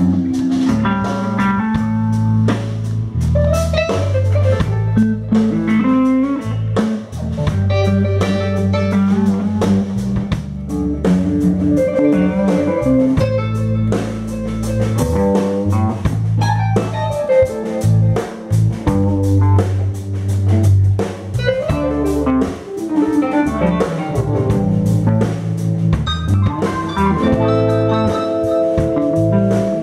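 Live band playing a blues jam: electric guitars over keyboard, steady low bass notes and a drum kit.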